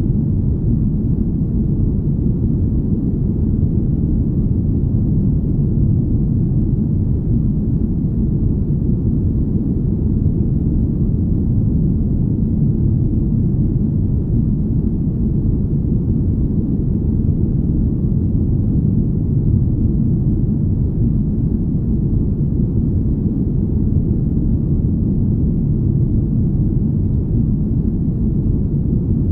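Deep, smooth rumble: dense, steady low noise with no high end, made as a spaceship-cabin ambience.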